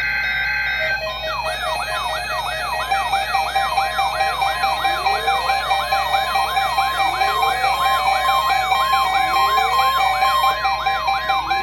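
Weather alert radio sounding its siren alarm for the weekly test, a fast warbling tone that rises and falls about twice a second, starting about a second in, with music going on underneath.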